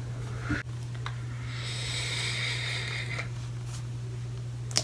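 A person breathing out in a long, breathy hiss, over a steady low electrical hum, with a short click near the end.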